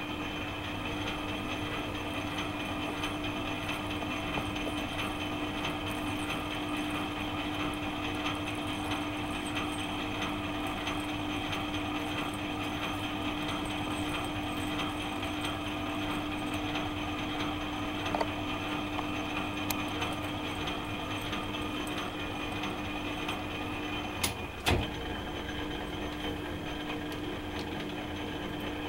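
Metal lathe running steadily with a constant hum while an internal thread is cut in a tube held in the chuck. A few light clicks partway through, and two sharp metallic knocks about three-quarters of the way in are the loudest sounds.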